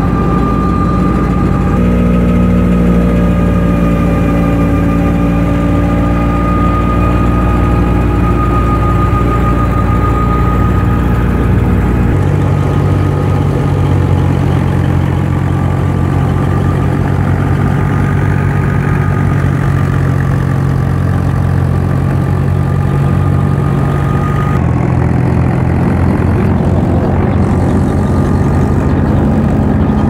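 Tractor-powered wheat thresher running with the tractor's engine driving it: a loud, steady mechanical drone under a high steady whine. The drone shifts abruptly about 2, 12 and 25 seconds in.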